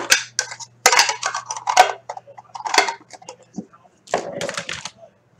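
Irregular clicks, clinks and short rustles of hard items being handled on a tabletop, over a steady low electrical hum.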